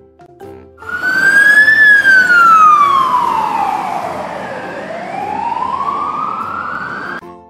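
Fire truck siren: one slow wail that rises briefly, slides down for a few seconds, then climbs again, over a rumble. It starts about a second in and cuts off suddenly near the end.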